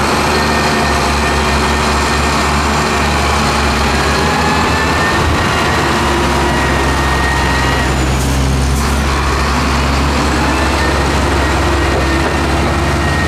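Loaded Sinotruk HOWO dump truck's diesel engine running steadily as the truck drives away.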